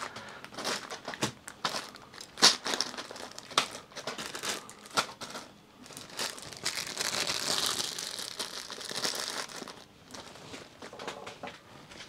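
Plastic bags of loose keycaps and switches crinkling and rustling as they are handled and lifted, with scattered knocks and clatters as the bags and a plastic basket are moved. The crinkling is densest and steadiest about six to ten seconds in.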